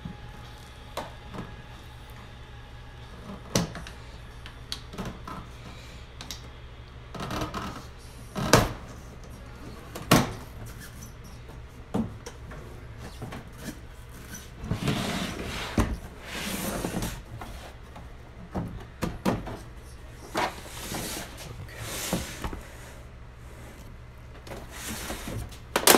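Plastic back cover of a Vizio E40-D0 TV being pried off by hand, its snap-fit clips popping loose in a series of sharp clicks and snaps, with plastic scraping and rubbing in between.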